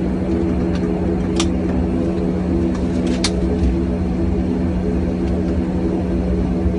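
Steady drone of an airliner's engines and air flow heard inside the passenger cabin, with a constant low hum under it. A few light clicks come about a second in and again around three seconds in.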